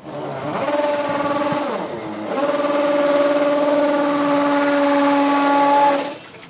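Cordless drill running at high speed, a high motor whine in two runs: a short one of about a second that winds down in pitch, then a longer steady one of about three and a half seconds that stops abruptly.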